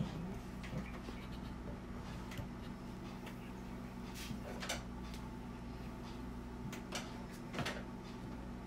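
Scattered soft clicks and scrapes of things being handled, a few seconds apart, over a steady low hum.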